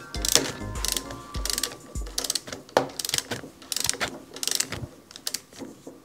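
Ratchet wrench clicking in short runs as its handle is swung back and forth, tightening a lock nut; the runs come about twice a second and thin out near the end.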